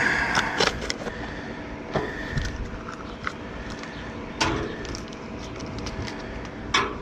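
Scattered clicks and knocks of hard parts being handled and shifted while replacement run capacitors are sorted through, over a steady low hum.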